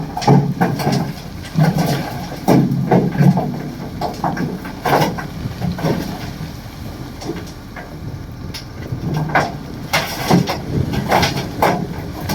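Komatsu D58 crawler bulldozer working: a low engine drone under many irregular metallic clanks and knocks.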